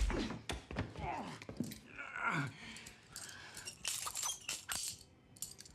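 Faint scattered clicks and knocks of things being handled, with a brief muffled voice-like sound near the start.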